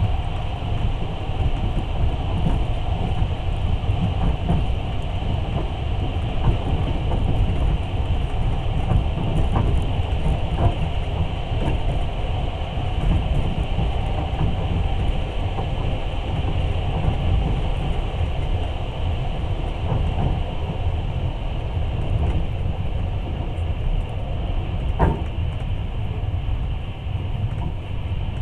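Moving passenger train heard from inside a carriage: a steady rumble of wheels on rails, with a few light clicks and one sharp click near the end.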